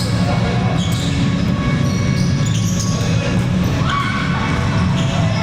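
Background music, with a few sharp volleyball hits from the game under it.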